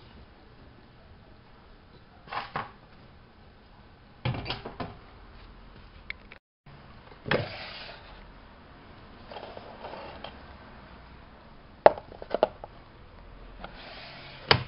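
Scattered handling noises: a few separate knocks, clicks and short rustles, a couple of seconds apart, with no steady machine running underneath.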